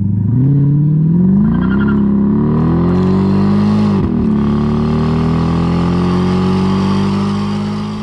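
Car engine accelerating, its pitch climbing steadily, with a brief sharp dip in pitch about four seconds in, then holding and rising slowly before starting to fade near the end.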